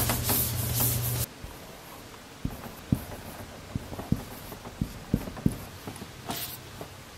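A whiteboard being wiped with a cloth for about a second, a steady rubbing with a low hum, then a marker writing on the board: a series of sharp taps as the tip meets the surface, with a brief scratchy stroke near the end.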